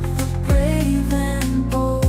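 Music: held bass notes and a melody, with a deep, pitch-dropping kick drum about half a second in and again at the end.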